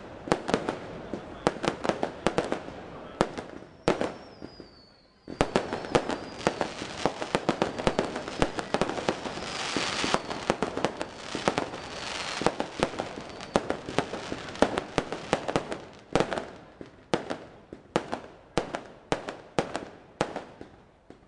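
Aerial fireworks going off in rapid volleys of sharp bangs and crackling, with a short lull about four seconds in where a faint falling whistle is heard. The barrage then thickens into dense crackling and thins near the end to separate bangs about one or two a second.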